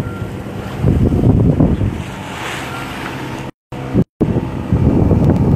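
Wind buffeting the microphone in gusts over the steady running of a sailboat's engine and water rushing in its wake. The sound drops out completely twice, briefly, about three and a half and four seconds in.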